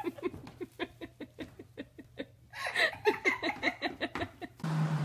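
A person laughing in a quick run of ha-ha pulses that fades out, then breaks into laughter again about halfway through. Near the end it cuts off suddenly and gives way to a steady low hum.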